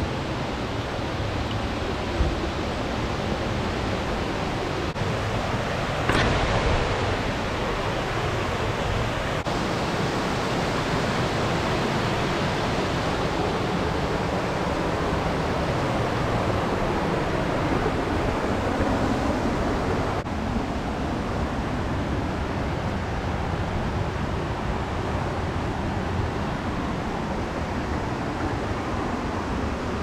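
Steady rush of falling water in a mountain gorge, a dense even noise, with a short knock about two seconds in and a brief louder swell around six seconds.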